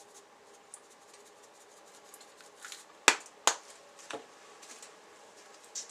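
Kitchen handling sounds while seasoning soup: a few sharp taps and clicks, the two loudest about three seconds in and half a second apart, over a faint hiss.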